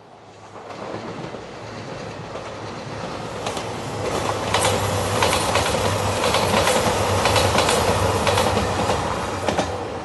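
JR Shikoku 2700 series diesel limited express train passing, growing louder from about a second in, with the diesel engines humming low and the wheels clacking over rail joints through the loudest middle stretch. It eases slightly near the end as the train draws away.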